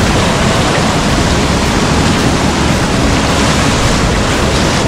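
Surf breaking and washing over rock ledges close by: a loud, steady rush of churning white water.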